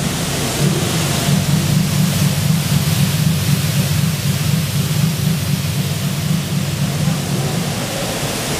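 Loud, steady rumbling whoosh with a fast-throbbing low hum: a spinning-fan sound effect played by a TunnelVision waterslide tunnel effects display along with its projected fan image.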